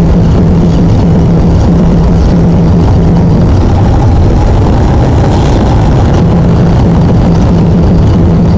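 Lexus IS sedan driving, heard from inside the cabin: a loud, steady engine and road rumble with a constant low hum, cruising in top gear.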